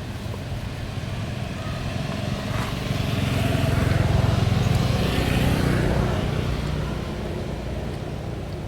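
A motor vehicle passing by, its engine sound building to a peak about halfway through and then fading away.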